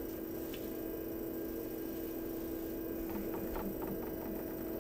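Steady hum, one unchanging tone held throughout, with a few faint clicks about three seconds in.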